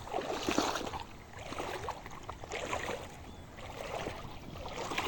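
Floodwater splashing and sloshing in a run of short, irregular bursts.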